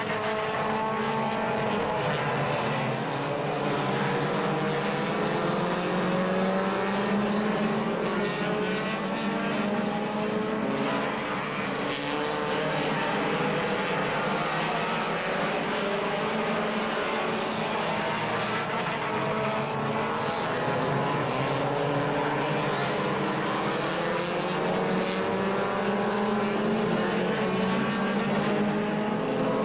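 A pack of four-cylinder stock cars racing, many engines running at once, their pitch repeatedly rising and falling as they accelerate down the straights and lift for the turns.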